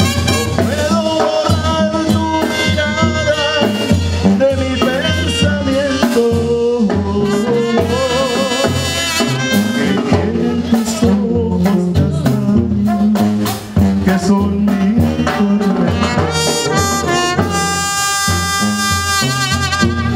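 Live banda regional (Mexican brass band) playing a dance tune: horns carrying a wavering melody over tuba bass and a steady drum beat.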